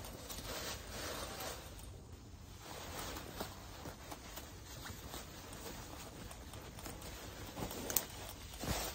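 Faint rustling with scattered light clicks and taps, a sharper tick near the end.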